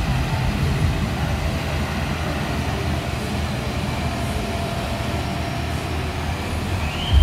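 Diesel engines of two John Deere tractors running steadily under load as they tow a heavy fairground-ride lorry: an even low rumble.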